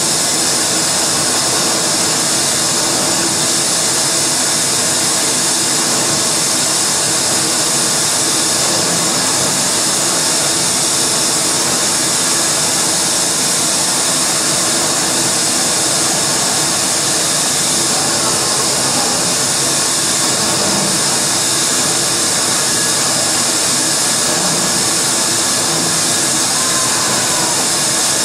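Live electronic noise music: a dense, unbroken wall of hissing noise, brightest in the high range, with faint held tones underneath. It comes from a microphone fed through effects pedals and a mixer.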